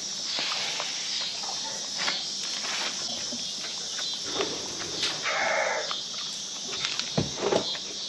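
Chickens moving and calling, with scattered sharp taps and scuffles, a short call about five seconds in, and a cluster of louder taps near the end.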